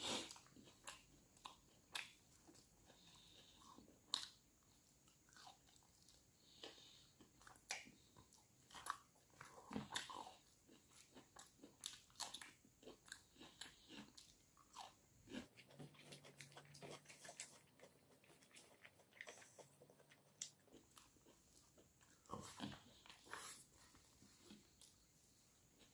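A man chewing and biting mouthfuls of rice and side dishes eaten by hand, picked up close, with irregular crisp crunches and small wet mouth clicks. Faint throughout.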